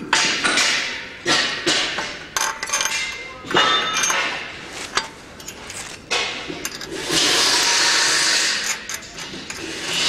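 Steel square-tube brackets and bolts being handled and fitted onto a steel machine frame, with a series of sharp metal clinks and knocks. About seven seconds in, a steady hissing noise starts and keeps going.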